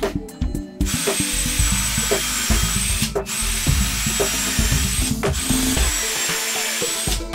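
Cordless drill running into a wooden board in three runs of about two seconds each, with a steady high whine and short pauses between runs.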